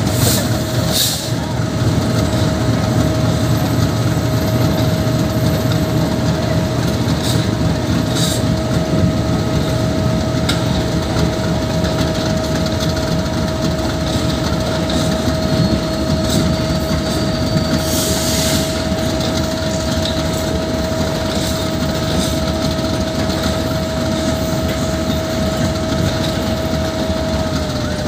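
Freight train wagons rolling slowly past on the adjacent track, the wheels clattering over the rail joints with a steady rumble. A steady hum runs underneath and drops slightly in pitch near the end, with a few brief high hisses or squeals, the clearest about eighteen seconds in.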